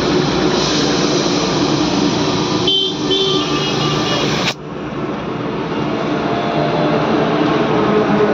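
Air compressor running and air hissing through the hose into a motorcycle tyre as it is inflated, a loud steady noise that dips suddenly about halfway.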